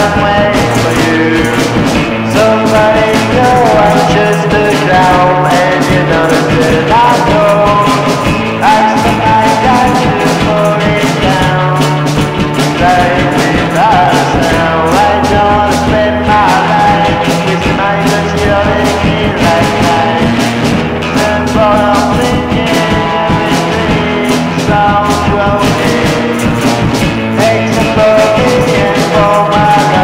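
Rock song played by a band, continuous with a steady beat.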